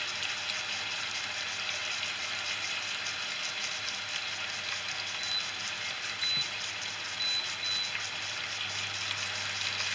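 Veal rib chops frying in oil in a non-stick pan: a steady sizzle with a fine crackle.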